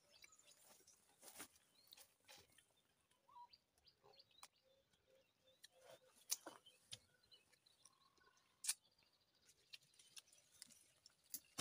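Faint, scattered sharp knocks and clicks at irregular intervals, with faint bird chirps in the background.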